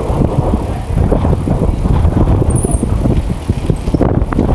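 Bicycle riding along a street, heard from a camera mounted on the rider or bike: a steady rough rumble and rattle from the tyres and frame, with wind on the microphone.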